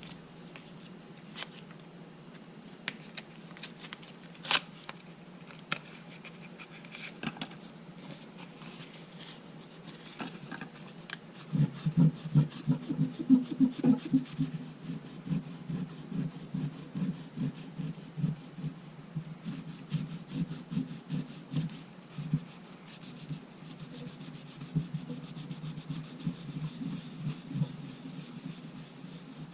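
Rubbing on the glass face of a Sony A7R2 LCD panel, scrubbing off its flaking outer protective coating. Scattered light taps and clicks come first. A little before halfway, rapid back-and-forth rubbing strokes start and keep going.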